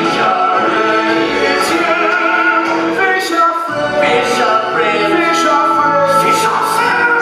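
Stage-musical song: several voices singing long held notes together over instrumental backing, with sharp percussive beats here and there.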